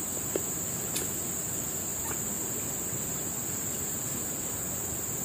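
Steady high-pitched insect chorus over a constant background hiss, with a few faint ticks in the first couple of seconds.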